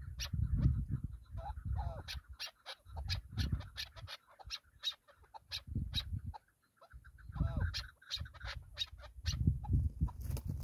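Chukar partridges calling: a rapid run of sharp clucking notes, several a second, with a couple of longer wavering calls mixed in.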